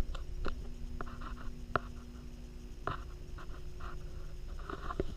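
Scattered light taps and clicks, about half a dozen, over a faint low steady hum, muffled as picked up by a GoPro sealed in its waterproof housing under water in a sink.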